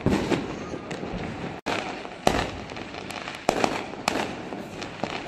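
Fireworks and firecrackers going off: a series of sharp bangs at irregular intervals over a continuous crackle, with a brief dropout about one and a half seconds in.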